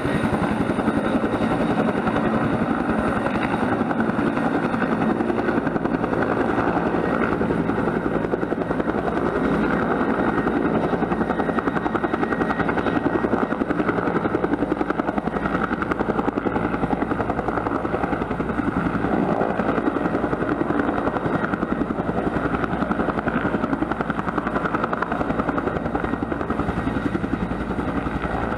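Bell 212 helicopter running steadily: the fast, even beat of its two-blade main rotor over the whine of its twin turboshaft engines.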